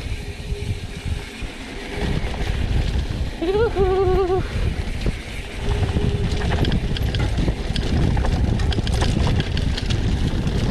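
Wind buffeting the helmet-camera microphone over the rumble of mountain bike tyres rolling on a dirt singletrack, with rattles and clicks from the bike over bumps in the second half. A brief pitched call that rises and then wavers comes about three and a half seconds in.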